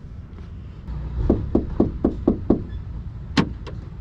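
Knuckles knocking about six times in quick succession on a van's sheet-metal sliding side door, then a single sharp click as the door handle is pulled.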